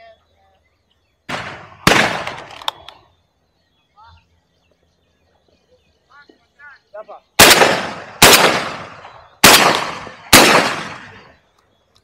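Shotguns firing six shots, each trailing off over about a second: a pair about a second and a half in, the first softer, then four in quick succession from about seven to ten seconds in.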